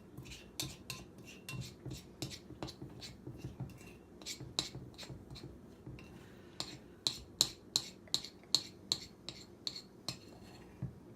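A spoon stirring thick cake batter in a small cup, clinking against its sides about two to three times a second. The clinks get louder and ring more clearly in the second half.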